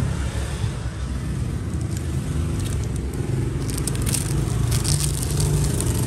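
Steady low rumble of road traffic. Scattered short crackling and scraping noises come in roughly the second half.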